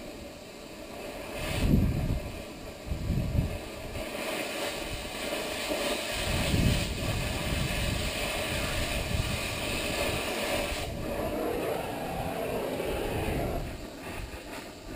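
Cutting torch hissing steadily as it slices the rivet heads off a steel truck frame, with a few low thuds in the first seconds. The hiss eases off about a second before the end.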